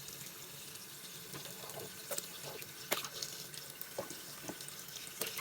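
Water tap running steadily into a basin, filling it, with a few faint light clicks among the flow.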